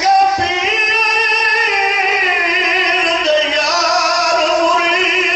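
A man's voice, amplified through a microphone, chanting in long drawn-out melodic notes with a slowly wavering pitch: a zakir's sung recitation at a Shia majlis.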